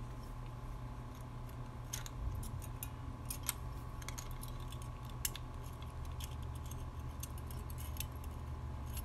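Scattered faint clicks and light jingling as a small plastic keychain figure and its attached metal key are handled, with small parts tapping together as a wire is fitted back into place.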